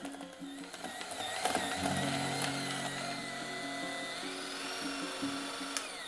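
Electric hand mixer running, its beaters churning crumbly butter cookie dough in a stainless steel bowl; the motor whine wavers slightly and falls away in pitch near the end as it winds down. Light music plays underneath.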